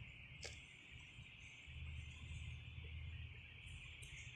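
Faint room tone: a steady high-pitched hiss under a low rumble, with a single short click about half a second in.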